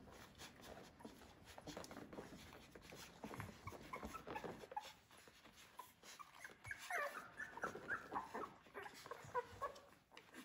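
Two-week-old Australian Labradoodle puppies nursing: soft clicking and shuffling, then from about halfway through a run of many short, high squeaks and whimpers.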